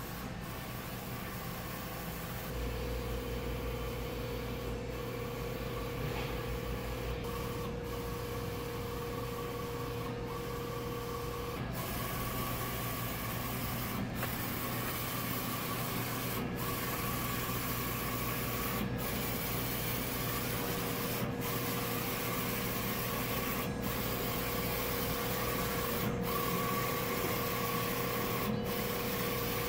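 Roland Soljet Pro III XC-540 wide-format inkjet printer/cutter printing, its print-head carriage sweeping back and forth: a steady mechanical whir with a held tone, broken by a short dip about every two and a half seconds.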